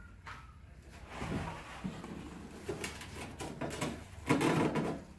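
Handling noise as a steel truck tailgate is laid flat on a plywood board and tools, including a cordless drill and a plastic drill-bit case, rest on it: a run of light knocks, taps and scrapes. The loudest clatter comes shortly before the end.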